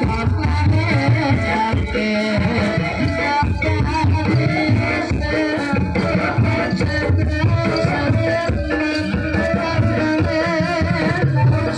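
Live ebeg campursari music: a Javanese ensemble playing hand drums and rattling percussion under a wavering singing line, continuous and loud.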